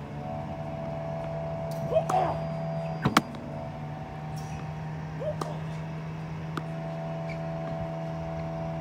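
Slinger Bag tennis ball machine running with a steady hum. Its pitch briefly wavers as balls are fired, about two and five seconds in, among a few sharp knocks from launched and struck tennis balls, the loudest about three seconds in.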